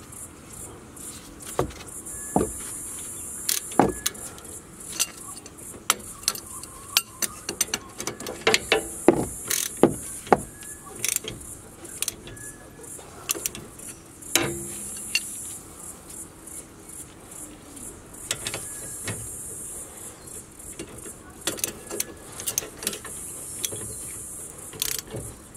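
Irregular metal clicks and clinks of hand tools on a rear disc-brake caliper as its bolts are refitted and tightened, with a socket ratchet clicking near the end.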